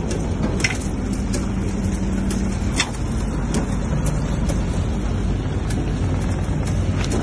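Rendering plant machinery running: a steady low hum with light clicks or knocks about twice a second.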